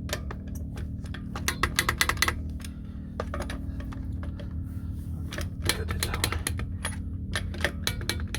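Ratchet of a 1/2-inch drive torque wrench clicking in quick irregular runs as RV wheel lug nuts are run down and torqued to 30 foot-pounds, over a steady low hum.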